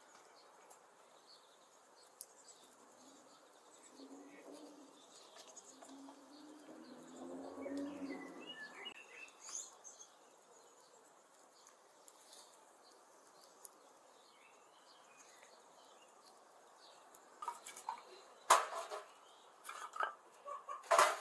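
Small birds chirping now and then over quiet outdoor background. Near the end come several sharp wooden knocks as split kindling is put into a metal stove.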